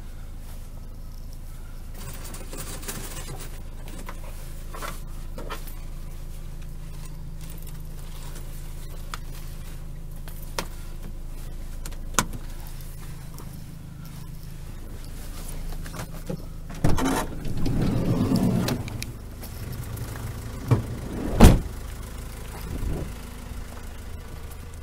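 Opel Vivaro's 1.9 CDTI four-cylinder turbodiesel running with a steady low hum. There are a few sharp clicks or knocks, a louder, rougher stretch of about two seconds roughly two-thirds of the way through, and one loud knock a few seconds later.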